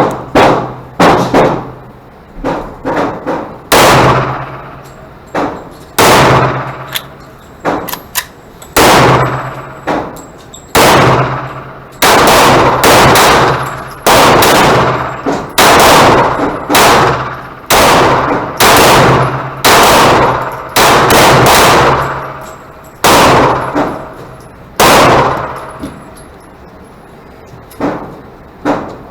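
Glock 44 .22 LR pistol being fired shot after shot, at a slow irregular pace of about one shot a second, each sharp crack trailing off in a short ringing decay.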